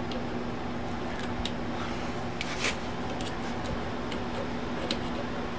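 Light metallic clicks and ticks of a screwdriver working a small screw into an Underwood typewriter's carriage parts, with a louder cluster of clicks about two and a half seconds in and another near the end, over a steady low hum.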